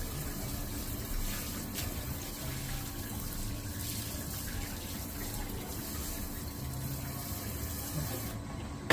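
Tap water running steadily, as feet are washed under it before a doctor-fish foot bath.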